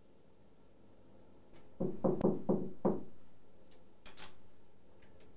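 Five quick knocks on a door, followed about a second later by a single sharper click.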